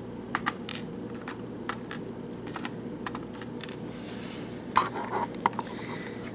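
Small metal lock parts clicking and tapping on a hard surface as a disassembled Euro lock cylinder and its pins are handled, in irregular light clicks with a short cluster of louder ones past the middle.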